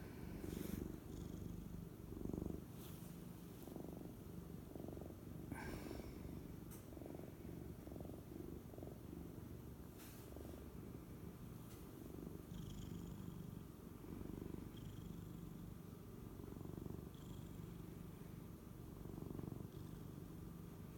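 Domestic cat purring steadily, the low rumble swelling and easing with each breath in and out.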